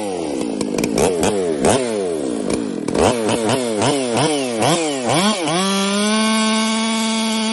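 Ported Stihl MS460 chainsaw, fitted with a dry nitrous kit and an expansion chamber, revved up and down about twice a second. About five and a half seconds in it settles and holds steady at full throttle.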